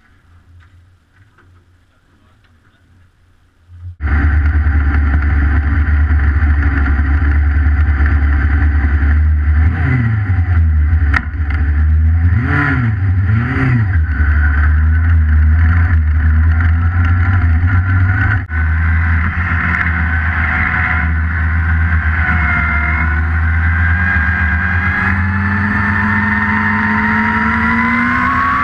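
A CanAm midget race car's engine fires up about four seconds in and settles into a loud, steady idle. It is revved up and down a few times, then the pitch climbs as the car pulls away and accelerates near the end.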